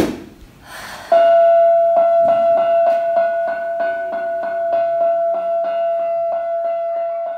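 Background music: a keyboard repeating one high note about three times a second, starting about a second in, after a short click at the very start.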